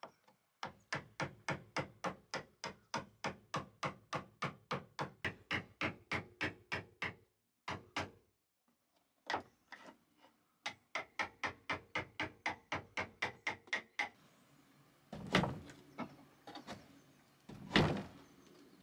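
Claw hammer striking the plastic handle of a wood chisel cutting into a timber window frame: quick, even blows about four a second in two long runs with a pause between, then a few heavier, irregular knocks near the end.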